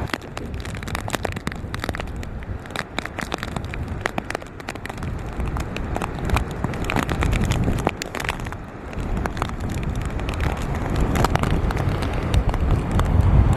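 Hurricane wind and rain: gusts rumble on the microphone, stronger near the end, with many sharp raindrop taps throughout.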